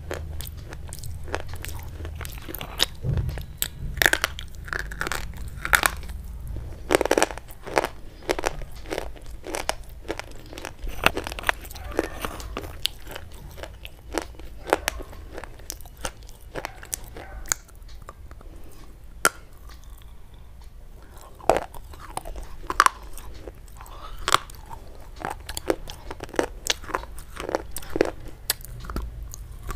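Hard, brittle white sticks being bitten and crunched close to the microphone: irregular sharp snaps with chewing crunches between them, thinning out a little past the middle.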